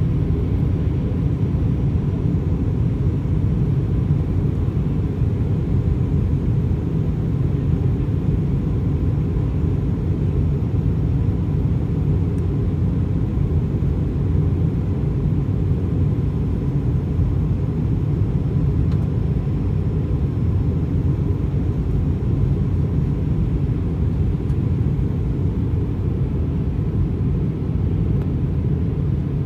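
Steady low rumble inside the cabin of an Airbus A320 in flight: engine and airflow noise heard from a window seat over the wing, with a faint steady tone above it.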